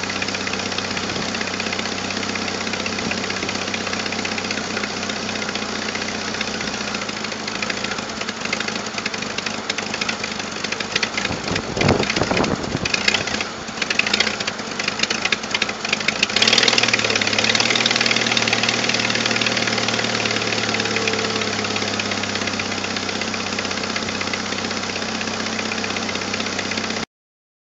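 1997 Jeep Wrangler TJ's 2.5-litre four-cylinder engine running at idle, with an uneven, louder stretch midway before it settles into a louder steady run. The sound cuts off suddenly near the end.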